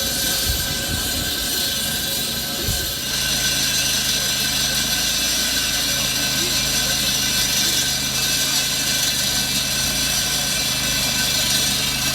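Road-repair machinery running steadily: a low engine hum under a broad hiss. The hum settles into a steady drone about three seconds in.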